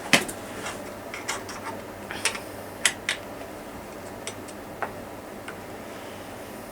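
Irregular sharp metallic clicks and taps as a 5 mm Allen key works the clamp bolt of a Shimano 105 STI shifter, tightening it onto the handlebar. The loudest click comes right at the start, and the clicks thin out after about five seconds.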